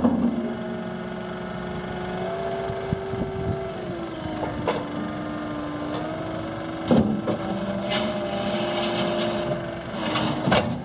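Cat 299D2 compact track loader's diesel engine and hydraulics running under load, the pitch shifting up and down as the machine turns and lowers its bucket. A few sharp metallic clanks come from the machine: at the start, near the middle and about two-thirds of the way through.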